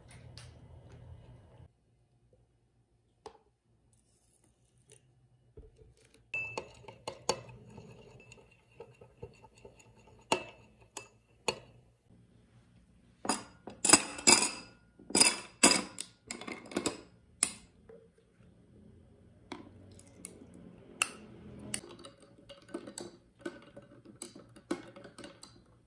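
Dishes, glassware and cutlery clinking and clattering as they are handled, starting after a few seconds of quiet, with a dense run of loud clatter about halfway through.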